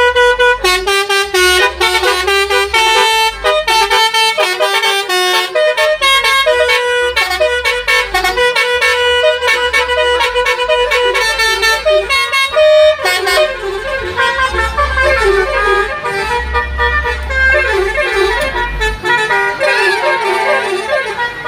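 Basuri telolet horn, a multi-tone musical vehicle horn, playing a long rapid melody of chords that change pitch every fraction of a second, with a low throbbing pulse underneath.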